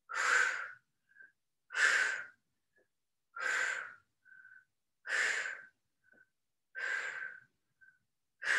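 A woman breathing hard through her mouth with the effort of sit-up reps: a forceful exhale about every second and a half, six in all, with short, faint, whistly inhales between them.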